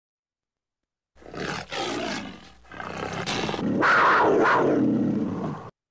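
A loud cat-like roar in two parts, a short one and then a longer, louder one that cuts off abruptly, going with a black cat's wide-open yawn.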